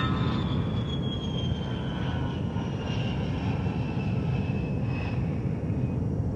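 Jet airliner engines: a steady low rumble with a thin high whine that slowly falls in pitch.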